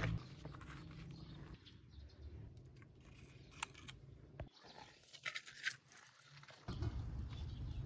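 Faint scattered knocks and scrapes of dry firewood and kindling being laid into a clay stove's firebox.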